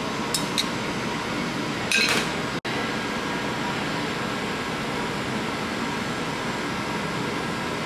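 Steady fan noise of kitchen ventilation, with two light clicks near the start and a short clatter about two seconds in. The sound drops out for an instant just after the clatter.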